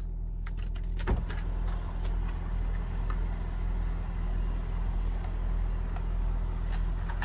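Car engine idling, heard from inside the cabin as a steady low hum, with a few light clicks and rustles of handling, the clearest about a second in.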